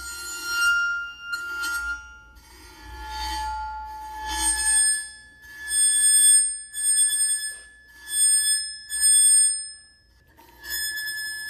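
A bow drawn again and again across the edge of a sand-covered metal Chladni plate, making the plate ring with clear, high tones in about nine strokes. Each stroke holds one pitch, and the pitch changes from stroke to stroke, higher in the later strokes. Each tone is one of the plate's resonances, and the higher ones set the sand into more complex patterns.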